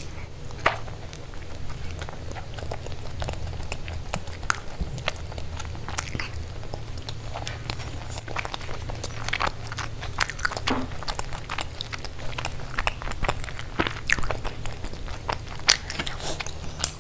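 Close-miked eating: irregular crunchy bites and chewing, with a steady low hum underneath.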